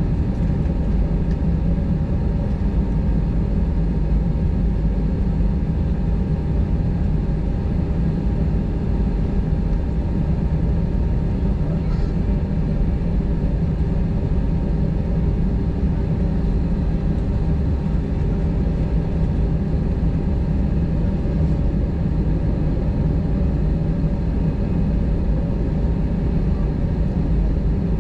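Airbus A320-232's two IAE V2500 turbofan engines at taxi idle, heard inside the cabin: a steady rumble with a faint hum of steady tones over it.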